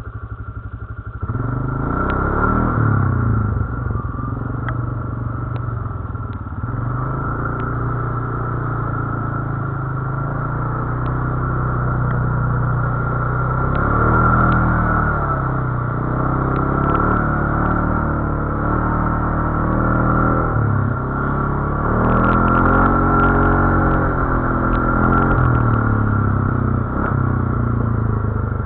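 GOES 520 Max ATV engine running while riding off-road, its revs rising and falling again and again. Scattered clicks and clatter come through, most of them about three quarters of the way in.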